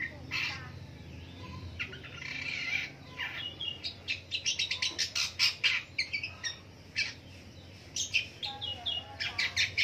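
Caged long-tailed shrike singing a varied song of scratchy chatter and sharp chirping notes, with a quick run of sharp notes in the middle.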